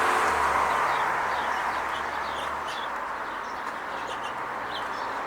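Small birds chirping in many short, high notes over a steady rush of distant traffic, with a low engine hum that fades out about halfway through.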